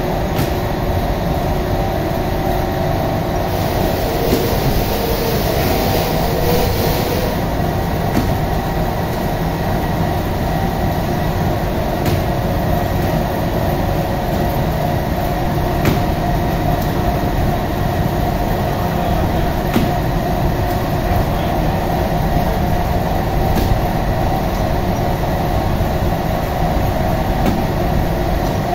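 Bakery dough-sheeting machine running steadily, its motor, belts and rollers making a dense mechanical rumble with a steady hum. A brief rise in hiss comes about four seconds in and fades a few seconds later.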